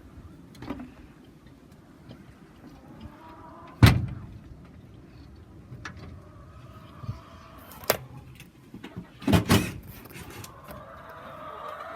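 Chicken coop door being handled: a few sharp knocks and bangs, the loudest about four seconds in, another near eight seconds and a quick double bang about nine and a half seconds in.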